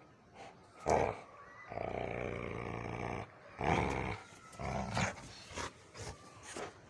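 Dog play-growling while tugging a cloth: a sharp burst about a second in, one long growl of about a second and a half, then several shorter growls.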